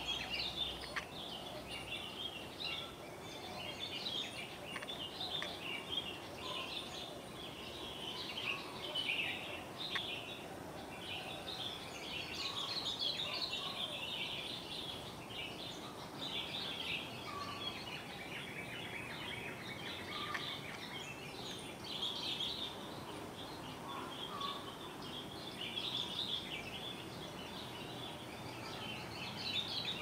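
Several sooty-headed bulbuls calling at once in the trees: a continuous, overlapping run of short high chirps, with fainter lower notes now and then, over a steady outdoor hiss.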